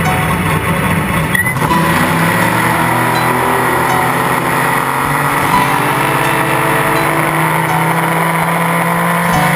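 Off-road trophy truck engine running at steady high revs, with a shift in pitch about a second and a half in.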